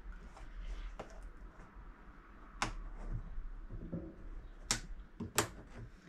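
A handful of sharp clicks and light knocks as a metal bias spring is unhooked from its slot in the plastic neck ring of a Fisher & Paykel SmartDrive washing machine, the loudest clicks in the second half.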